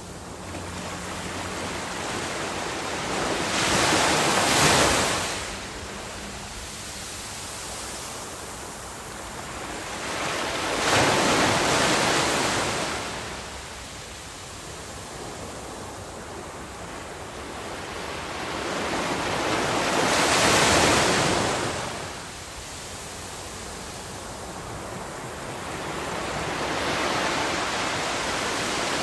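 Ocean waves breaking on a beach: four big surges that swell and fall away, roughly every seven to nine seconds, with a steady wash of surf between them.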